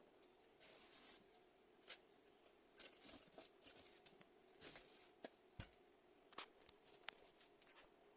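Near silence: room tone with faint, scattered small clicks and brief rustles.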